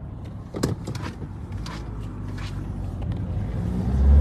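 Car driving at speed, heard from inside the cabin: steady engine and road noise that grows louder, with a few sharp clicks in the first half and a strong low hum near the end.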